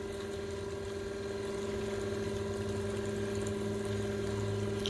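Above-ground pool sand filter pump running, a steady motor hum over the rush of water it is circulating.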